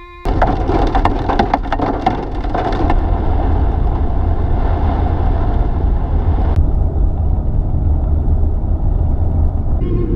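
Rain pelting a moving car's windshield and body, heard from inside the car over a steady low rumble of road and wind noise. Dense sharp drop impacts clatter for the first three seconds or so, and the sound changes abruptly at about six and a half seconds.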